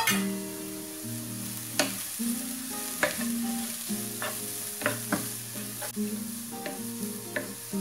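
Chopped vegetables sizzling as they stir-fry in a nonstick pan, stirred with a wooden spatula that scrapes and knocks against the pan several times.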